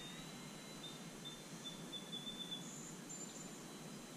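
Faint, distant whine of a small electric RC airplane's brushless motor and propeller: a thin steady high tone over outdoor background noise. A few short high chirps come about a second in and again near three seconds.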